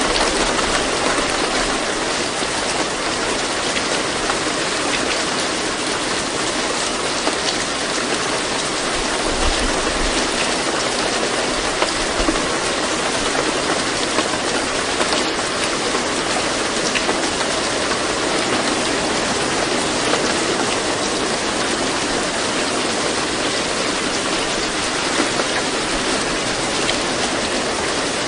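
Steady recorded rain: an even, unbroken hiss of rainfall with no changes in level.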